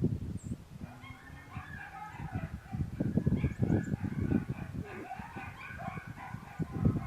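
Electronic game caller playing a string of short, broken animal calls, used to lure coyotes in, with wind buffeting the microphone.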